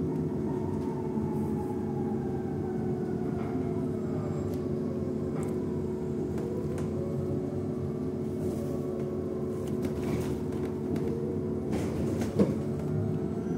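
LiAZ-6274 electric bus heard from inside the cabin while driving: a steady low rumble and hum, with the traction motor's whine falling in pitch over the first half and then rising again as the bus slows and speeds up. A sharp knock comes near the end.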